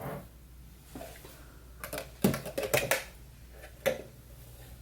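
A packaged candle being unpacked and handled: a series of light knocks and clicks, with a quick cluster of them in the middle.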